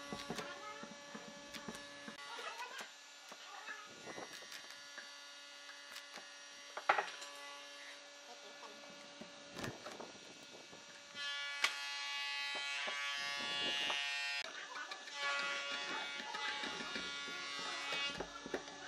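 Hand chisel paring into pine, with sharp cracks and snaps as slices of wood split off, over a steady electrical hum. About eleven seconds in, a buzzing machine sound comes in for a few seconds, louder than the chisel work.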